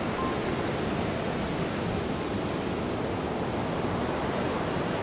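Steady rushing of ocean surf: an even wash of noise with no distinct wave breaks or swells.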